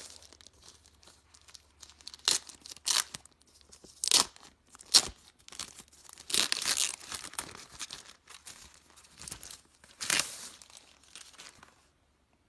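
Packaging wrap rustling and crinkling in a series of short, sharp bursts as a protective sheet is handled and pulled away from a drawing tablet in its box.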